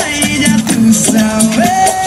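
Loud Latin dance music for a mambo routine, with held melody notes over quick percussion.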